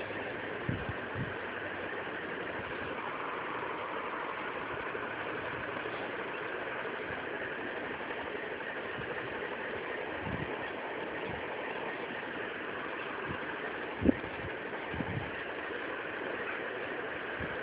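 Steady rushing background noise with a few soft low thumps, the loudest about fourteen seconds in.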